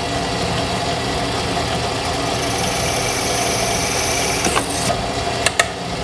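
Benchtop drill press motor running steadily while the bit drills a 1/4 inch wire hole through a plastic tail-light socket housing, with a higher cutting hiss in the middle. A few sharp clicks come near the end.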